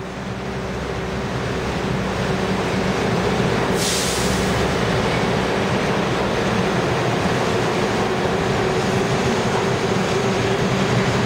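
New York City subway trains standing in an underground station, a steady loud hum and rumble of their running equipment, fading in over the first two seconds. A short hiss of air comes about four seconds in.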